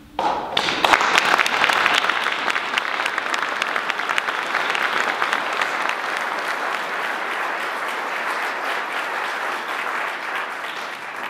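Audience applauding. The clapping breaks out suddenly, holds steady, and dies away near the end.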